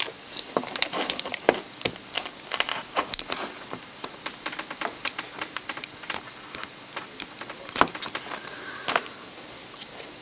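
Irregular small clicks, taps and rattles as a thin rod is poked into a drilled hole in an ignition lock housing to press down the lock cylinder's spring detent, with the metal lock shifting about as it is handled. The clicks come in uneven clusters, the loudest about three-quarters of the way through.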